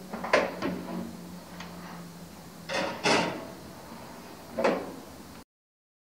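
Countertop toaster oven's hinged glass door being worked. A sharp metal clunk comes about a third of a second in, two more clunks follow around three seconds in, and another comes near the end, over a low steady hum. The sound then cuts off suddenly.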